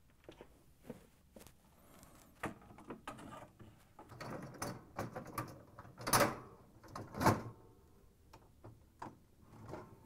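A refrigerator's freezer drawer door is being fitted onto its pull-out metal rails: scattered clicks, rattles and sliding scrapes of plastic and metal, with two louder knocks in the second half as the door's side tabs seat into the openings on the rails.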